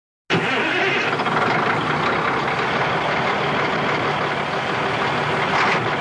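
Truck engine running: a loud, steady rushing sound that starts abruptly and swells briefly near the end.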